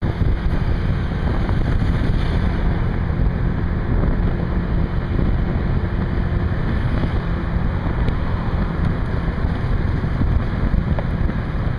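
Steady loud wind rush buffeting the microphone of a moving motor scooter, with the scooter's small engine running underneath.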